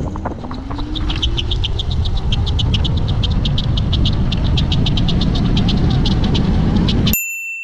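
Electric scooter accelerating flat out: heavy wind rumble on the onboard microphone with a faint motor whine rising in pitch, and a fast, even ticking over it. Near the end it cuts off abruptly into a steady electronic beep.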